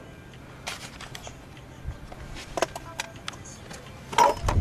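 A few scattered light clicks and clinks of metal parts and tools being handled. Near the end comes a louder low rumble with more clicking, like the camera or mic being handled.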